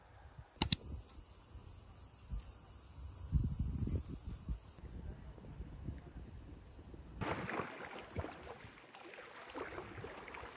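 Insects such as crickets trill in a steady high drone, broken by two sharp clicks under a second in and low rumbles of wind on the microphone. About seven seconds in the insects stop, and lake water sloshes and splashes around swimmers, with some wind noise.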